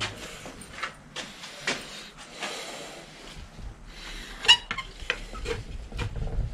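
Metal clicks and knocks as a bicycle's drive-side crank and chainring are handled and fitted onto a newly installed bottom bracket spindle, with a short scraping stretch about two and a half seconds in and a sharp clink, the loudest sound, about halfway through.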